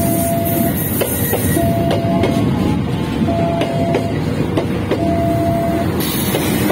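Freight train of flat wagons rolling past close by, its wheels rumbling and clacking irregularly over the rail joints, with a KAI diesel locomotive coming alongside near the end. A level-crossing warning alarm sounds a repeating steady tone, one about every 1.7 s.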